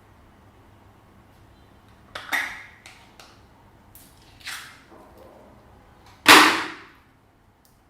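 Slime being pressed and worked by hand, making three short sounds about two, four and a half and six seconds in, the last the loudest.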